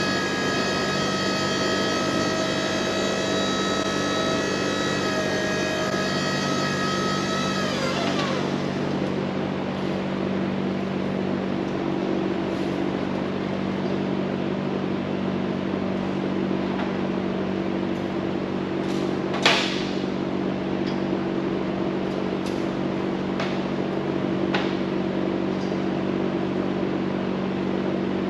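Upright aerial work-platform lift's electric drive motor whining steadily as the platform rises, then winding down in pitch and stopping about eight seconds in. A steady low hum carries on under it, with a few sharp clicks later, the loudest about twenty seconds in.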